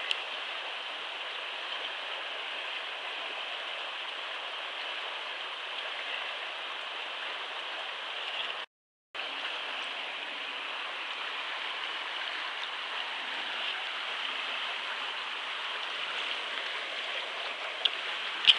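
Steady rushing of a flowing river close by, with a brief dropout to silence about halfway through and a couple of sharp splashes near the end.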